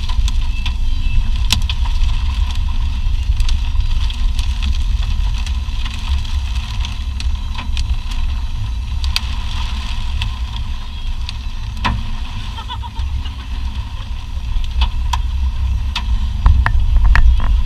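Car cabin noise while driving: a steady low road and engine rumble with scattered sharp ticks.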